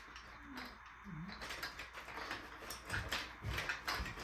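Marbles rolling and clattering down a plastic marble run, a fast run of small clicks and rattles that grows busier about a second and a half in.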